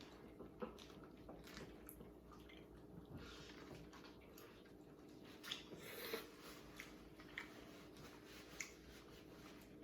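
Faint eating sounds: quiet chewing and wet squishing of seafood, with scattered small clicks over a low steady room hum.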